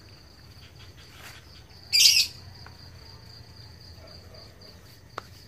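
Steady, evenly pulsing high insect trill, with one loud short chirp about two seconds in and a single sharp click near the end.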